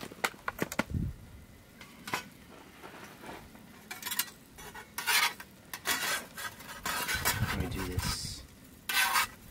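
Clinks and clatter of utensils and dishes during hands-on food preparation, with scattered sharp clicks and a few short noisy scrapes or rustles, the loudest about five seconds in and again near the end.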